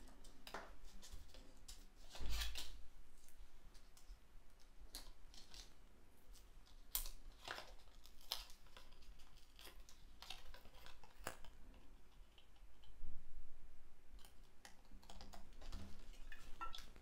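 Hands handling small pieces of paper and card: scattered soft clicks and rustles, with louder rustling about two seconds in and again around thirteen seconds.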